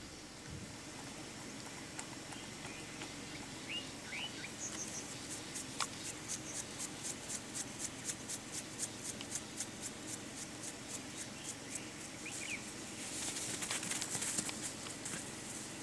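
Dawn bush sounds: short bird chirps, and a high-pitched pulsing call repeated evenly about four times a second for several seconds. Near the end comes a brief burst of high hiss.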